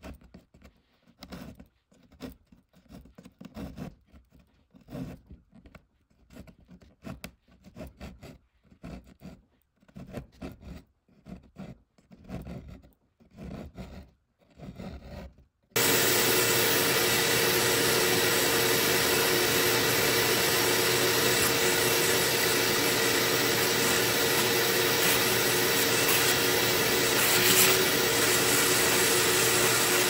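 A small metal pick scraping along a groove in wooden furniture in short, irregular strokes. About halfway through, a vacuum starts up loud and steady with a faint hum, drawing away sanding dust.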